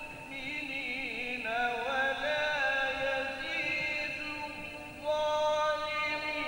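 A man reciting the Quran solo and unaccompanied in the melodic Turkish style. He draws out long notes with wavering, gliding ornaments, and a new, louder and higher phrase begins about five seconds in.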